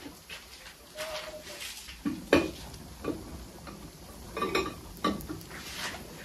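Kitchen jars and containers knocking and clinking against a concrete counter as they are picked up and set down: a handful of separate knocks, the loudest about two and a half seconds in and a quick cluster about four and a half seconds in.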